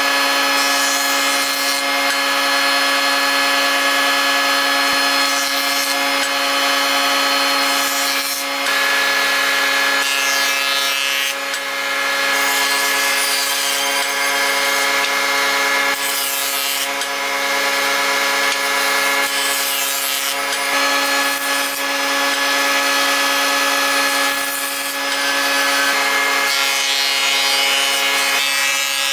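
Combination jointer-planer running with a steady machine whine while boards are pushed across its spinning cutterhead; the cutting noise swells and eases with each pass.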